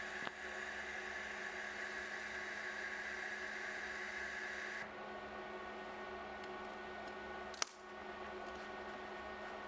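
TIG welding arc hissing steadily over a constant electrical hum, cutting off abruptly about five seconds in; a sharp metallic click rings out later.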